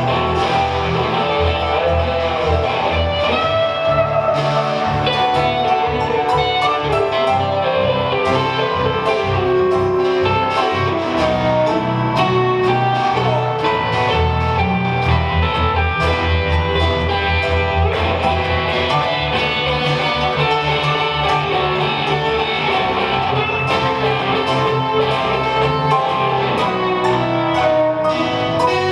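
Live band music led by guitars, playing an instrumental passage with no singing.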